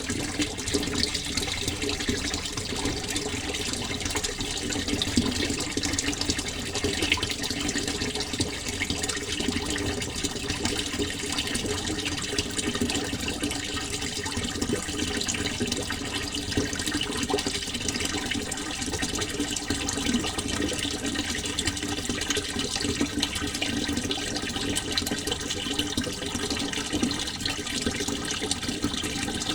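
Water flowing, a steady unbroken sound of moving water.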